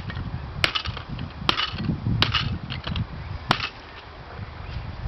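Four sharp, hard knocks at uneven intervals as a Pentium III laptop processor is struck, knocking off its pins.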